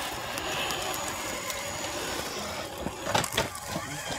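Radio-controlled scale crawler working over forest ground: a faint, steady whine of its electric motor and gears, then about three seconds in a short burst of cracks and crunches as the tyres climb over rocks and twigs.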